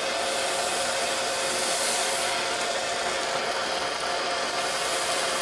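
Oxy-gas torch flame burning with a steady hiss while it heats a ceramic melting dish.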